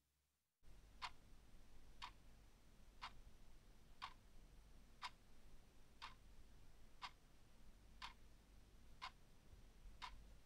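Faint clock ticking, one tick a second, beginning about a second in.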